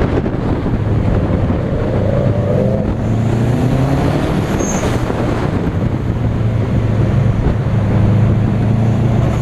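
Subaru Impreza's flat-four boxer engine running as the car drives along, its pitch rising briefly about two seconds in and again a little later, then holding steady.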